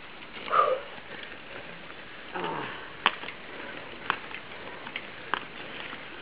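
A mountain bike passing on a stony forest trail: several sharp clicks and knocks from its drivetrain and tyres on the stones, after a brief shout and a short falling call from onlookers early on.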